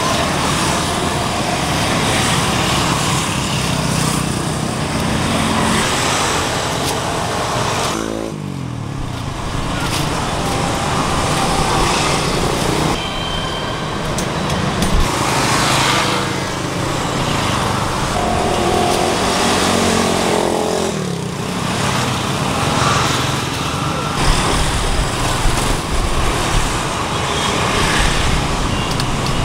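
Busy road traffic: motorbikes and cars passing close by, a steady mix of engine and tyre noise with one engine falling in pitch as it passes about eight seconds in.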